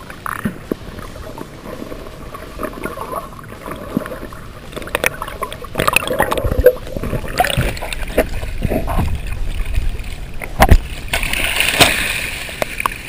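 Muffled water noise from a camera held underwater beside a hooked tarpon, with irregular knocks and sloshing that grow louder from about five seconds in, including two sharp knocks. Near the end the camera breaks the surface into the splashing of the thrashing tarpon.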